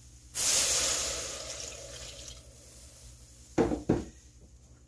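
Milk poured quickly into a saucepan of hot roux, splashing in with a sudden rush that fades over a couple of seconds. Near the end come two sharp knocks about half a second apart.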